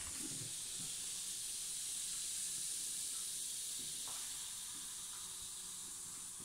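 Vinegar and baking soda fizzing as they foam up and overflow a small glass jar, a steady high hiss of carbon dioxide bubbling out that slowly fades. A few faint knocks near the start.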